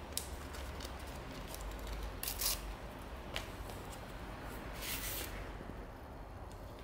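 Foil wrapper of a Panini football sticker pack being torn open by hand: a few short crinkling, tearing crackles, the loudest about two and a half seconds in.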